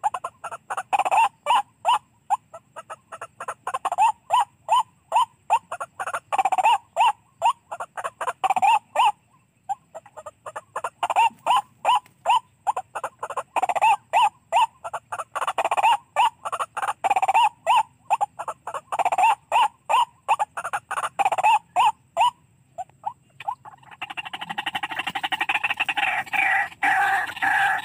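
White-breasted waterhen calls, played through a call player as a lure: a fast run of repeated call notes, about three to four a second, with short breaks about ten seconds in and again just before the end. Near the end the notes run together into a denser, continuous chatter.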